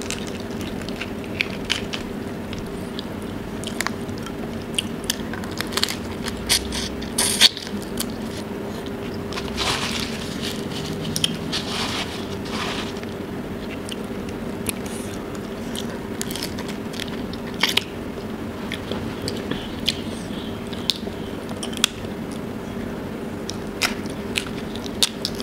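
Close-up eating sounds: the shells of giant tiger prawns being cracked and peeled by hand, with chewing, in many scattered sharp clicks and crackles.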